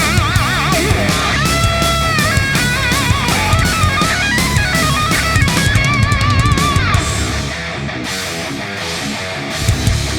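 Rock music with a distorted electric guitar playing a lead line with wide bends and vibrato over drums. The lead drops out about three quarters of the way through and the backing carries on more quietly.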